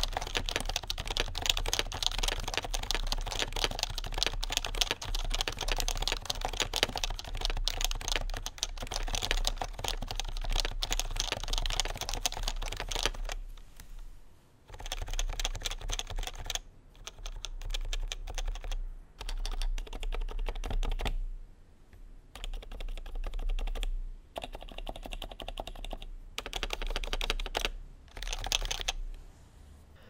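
Typing on a Happy Hacking Keyboard Professional 2 with 45 g Topre electrostatic capacitive switches: fast, continuous keystrokes for about the first half, then short bursts of typing separated by brief pauses.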